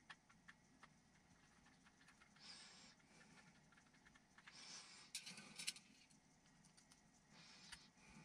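Faint handling noise from a small metal spring rate gauge being turned over in the hands: scattered soft clicks and rustles, with a short cluster of sharper clicks about five seconds in.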